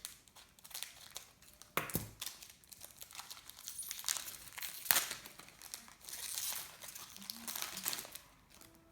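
A trading-card packet wrapper being torn open and crumpled: irregular crinkling with a few sharp rips, the loudest about two and five seconds in, and a longer stretch of crinkling near the end.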